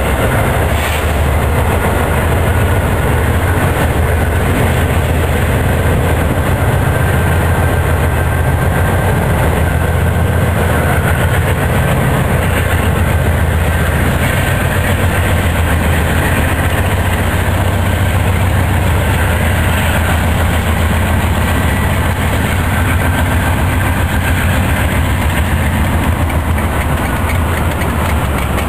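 Freight train passing close by, loud and steady: the diesel-electric locomotives' engines rumble deeply, with the clatter of covered hopper cars rolling over the rails.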